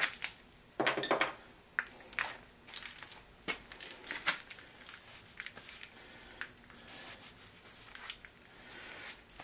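Small parts being handled by hand: scattered light clicks, clinks and rustles, loudest in a cluster about a second in and once more about four seconds in.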